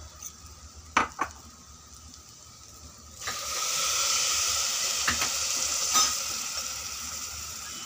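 Water being poured into a hot aluminium pressure cooker of sautéed sama rice and vegetables, sizzling as it hits the hot metal. The sizzle starts suddenly about three seconds in and slowly dies down, after a couple of light knocks about a second in.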